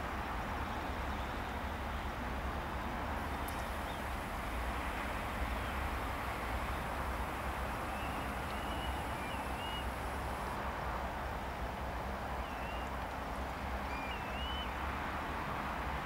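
Steady outdoor background rumble and hiss, with a few short chirping bird calls about halfway through and again near the end.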